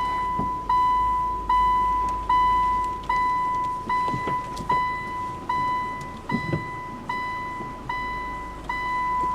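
A car's in-cabin warning chime beeping over and over, one clear electronic tone struck about every 0.8 s and fading after each beep, with the low rumble of the engine and a couple of dull knocks underneath.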